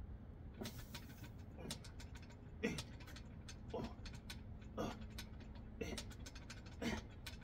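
A man exhaling hard with a short falling grunt on each bodyweight dip, about one a second, as he grinds through a long set of reps.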